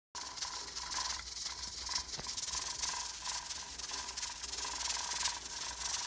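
Steam hissing from a stovetop pressure cooker's vent under its 15-pound weighted regulator as pressure builds, the weight just barely starting to rattle.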